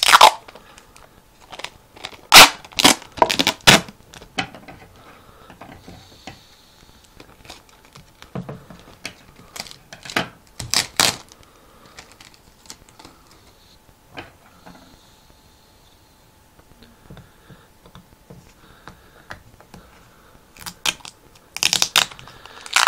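Wide clear packing tape pulled off its roll in short loud rips, in clusters with quieter handling clicks and rustles between.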